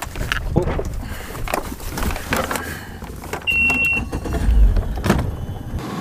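Knocks and rattles on a bass boat as the trolling motor is pulled up and stowed, with a short steady beep about three and a half seconds in and a low rumble just after it.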